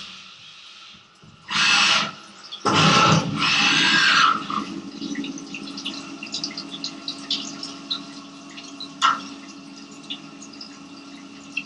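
Syil X7 CNC mill's flood coolant spraying and splashing over the workpiece, with a steady hum from the running spindle and scattered spattering ticks. Two loud hissing bursts come about two and three seconds in, before the steady running.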